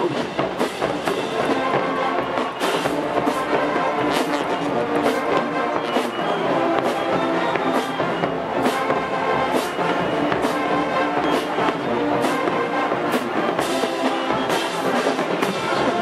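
College marching band playing its field show: massed brass carrying the tune over the drumline's steady strikes.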